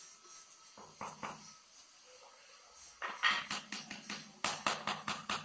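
Hand tool tapping on marble floor tiles bedded in mortar: a couple of light knocks about a second in, then a quick run of sharp taps in the second half.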